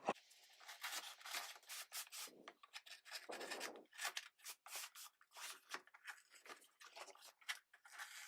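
A box being opened by hand: a quiet run of irregular scraping and rubbing strokes, several a second.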